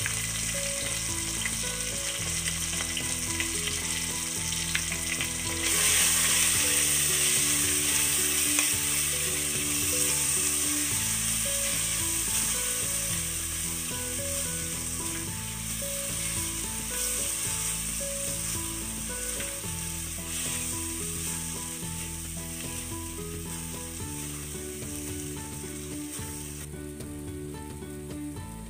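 Wet spice paste of ground coriander, cumin, turmeric and dried chilli, with grated tomato, sizzling in hot oil in a pan while it is stirred and scraped with a spatula. The sizzle gets louder about six seconds in, then slowly dies down.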